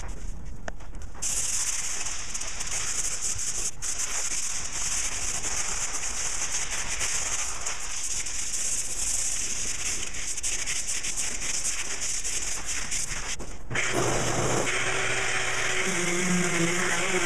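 Hand sanding of a fiberglass car hard top: fast back-and-forth strokes of sandpaper on a block, a dense scratchy hiss that strengthens about a second in. Near the end a low steady motor hum joins in.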